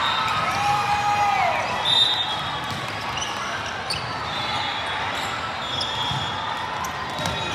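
Indoor volleyball game sounds in a gym: the ball being struck and bouncing, with short rubber-sole squeaks from players' shoes on the court floor, over a background of crowd chatter.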